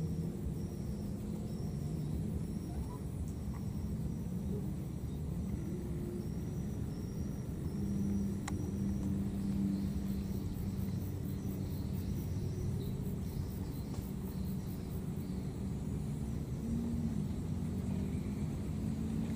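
Outdoor ambience by a marshy pond: a steady low rumble with shifting low tones, like a distant engine, under a high chirp that repeats about every half-second for the first eight seconds, then a fast high pulsing buzz from about ten to fifteen seconds in.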